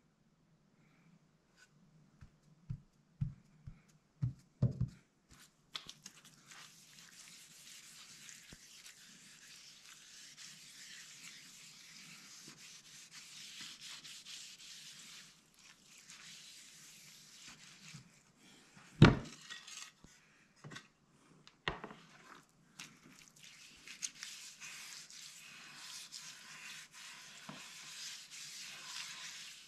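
Black walnut and maple cutting board being scrubbed by hand underwater in a plastic tub: a faint, steady rubbing hiss. A few light knocks come before the scrubbing starts, and one sharper knock comes about two-thirds of the way through.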